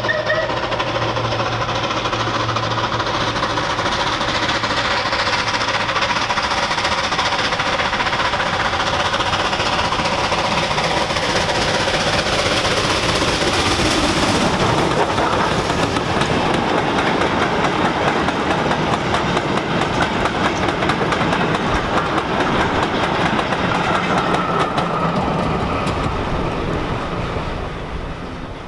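Bulleid unrebuilt Battle of Britain class Pacific steam locomotive working a freight train past: loud, rapid exhaust beats and rail clatter, with the pitch falling as it goes by about halfway. The tail of its whistle is heard at the very start, and the sound fades near the end.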